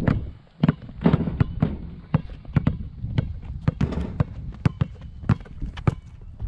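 Basketballs being dribbled hard on a rubberized outdoor court: an irregular string of sharp bounces, about three a second, from more than one ball.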